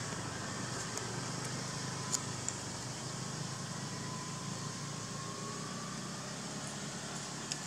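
Steady outdoor background noise with a low hum, like distant motor traffic, and a few faint clicks; a faint drawn-out tone sounds through the middle.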